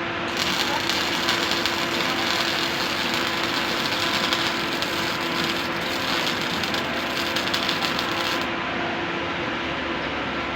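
CO2 MIG welding arc crackling steadily for about eight seconds, then cutting off sharply as the bead is stopped, over a steady hum from the welding equipment.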